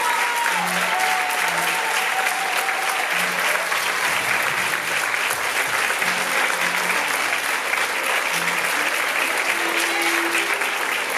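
Theatre audience applauding steadily, with music playing underneath.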